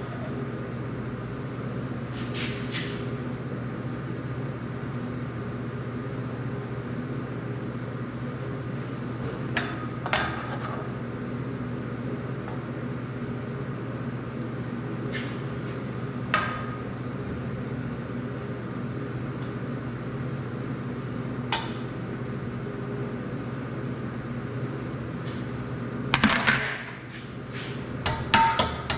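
A long box level being shifted against steel pipe, making a few separate light knocks over a steady low hum. Near the end comes a clatter as the level is set down on the table, then quick light hammer taps on the pipe joint.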